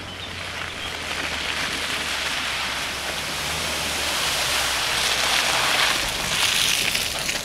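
Suzuki SX4 1.6 VVT's four-cylinder engine running with a low hum as its tyres spin and churn through wet mud, throwing it up in a steady rushing splash. The splashing grows louder about five to seven seconds in.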